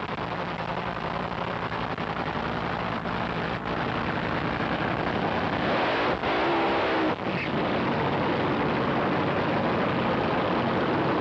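Nitromethane-fuelled top fuel dragster engines running loud through a tyre-spinning burnout, the revs climbing about six seconds in.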